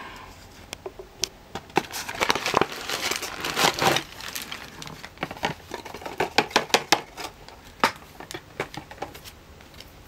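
Plastic packaging crinkling and rustling as a toy box is opened and its bagged parts are taken out, with scattered clicks and taps. It is busiest about two to four seconds in.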